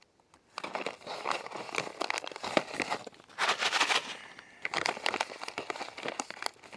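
Freeze-dried meal pouch crinkling and rustling in the hands as it is turned over and lifted, in irregular crackles with a denser burst of crinkling about three and a half seconds in.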